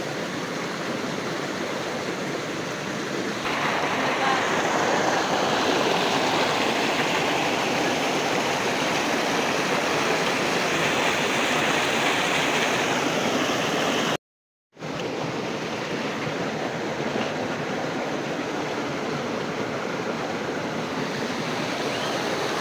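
River water rushing and flowing steadily, growing louder about three and a half seconds in; the sound cuts out completely for a moment about two-thirds of the way through.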